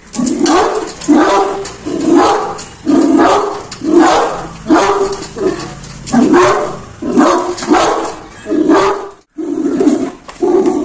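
Great Dane barking aggressively at a stranger, loud barks repeated about one to two a second, with a brief pause about nine seconds in.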